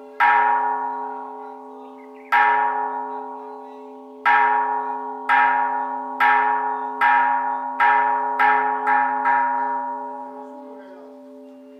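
A bell struck about ten times, the strikes coming faster and faster, from about two seconds apart to under half a second, each strike ringing on with a long fading hum. The ringing carries on after the last strike, which comes about nine seconds in.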